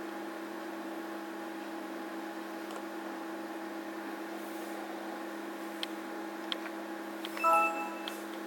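Steady hum of running computer equipment, with a few faint clicks around six seconds in and a brief tone about seven and a half seconds in.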